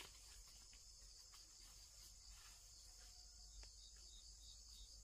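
Faint, steady high-pitched chorus of insects, likely crickets, with a low rumble underneath and a few faint chirps near the end.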